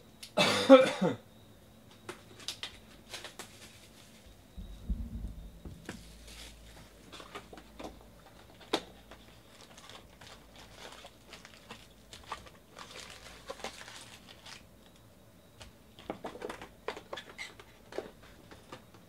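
A person coughs once, loudly, near the start. About five seconds in there is a low thud, then scattered rustling and crinkling of foil card-pack wrappers and a cardboard hobby box as the box is opened and its packs are pulled out and stacked.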